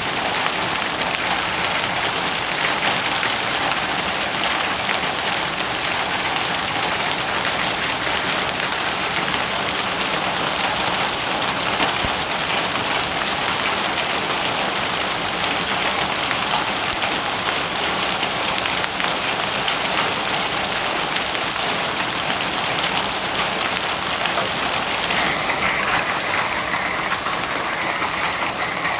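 Heavy hail and rain pelting a paved yard: a dense, steady clatter of countless hailstones and drops striking the ground. Near the end the hiss turns a little duller.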